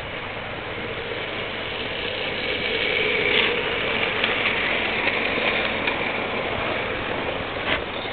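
Hornby model trains running on the track: a steady electric-motor whine and wheel rumble that swells as a rake of wagons passes close by about three seconds in, with a few sharp clicks.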